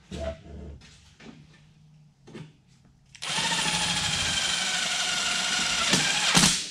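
Cordless drill running steadily for about three seconds against a sheet-metal duct pipe, its pitch sagging slightly under load, then stopping abruptly near the end. Before it come a few light knocks from handling the pipe.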